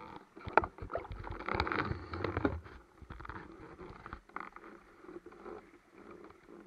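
Lake water sloshing and splashing around a speargun-mounted camera riding at the surface. It is louder and choppier for the first couple of seconds, then settles into fainter lapping.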